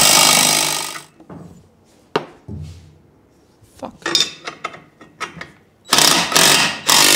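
A power tool runs in short loud bursts, driving the nut of a wheel-bearing puller to draw an old bushing out of a Porsche 964 rear suspension arm. One burst ends about a second in and two more come near the end, with clicks and metal knocks from the tool and parts in between.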